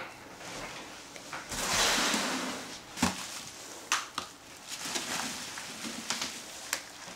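Plastic bubble wrap around a 3D printer rustling and crinkling as it is handled, loudest about two seconds in, with a few sharp knocks and taps of packing parts.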